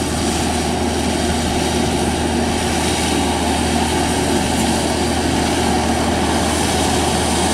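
Kubota engine of a homemade crawler rotary tiller running steadily as the machine drives its rubber tracks through wet paddy mud.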